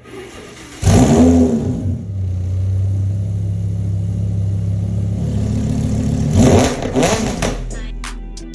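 Lamborghini engine revved: a sharp rise in engine note about a second in, settling to a steady idle, then another quick rev blip a few seconds later before the sound tails off.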